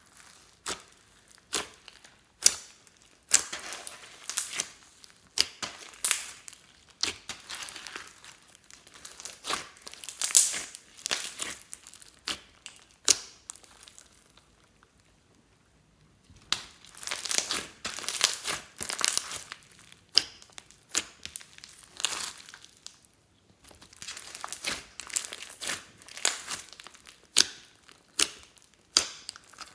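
Slime being kneaded and pulled by hand, giving dense bursts of sticky crackling and popping clicks, with two short pauses.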